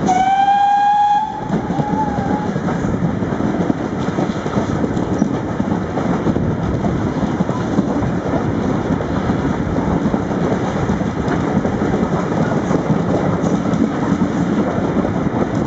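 Steam locomotive whistle sounding once for about a second, answering a sound-whistle board, heard from a carriage of the train. After it, the steady running noise of the coaches' wheels on the rails.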